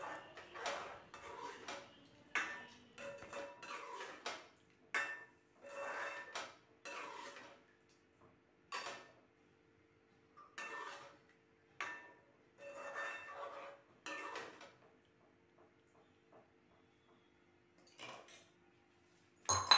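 Metal spoon stirring and scraping in a metal pan of thin gravy, a run of irregular scrapes and clinks for about fourteen seconds, then quiet apart from one sharp clink near the end. A faint steady hum runs underneath.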